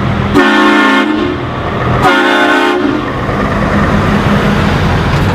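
Heavy vehicle engine rumbling steadily, with two horn blasts about a second and a half apart, each lasting well under a second.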